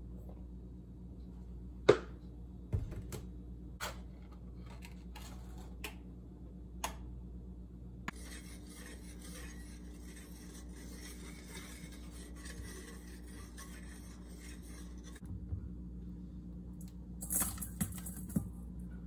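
Light clicks and knocks of small hard objects being handled, then a steady rasping hiss for about seven seconds, then a short burst of clatter near the end.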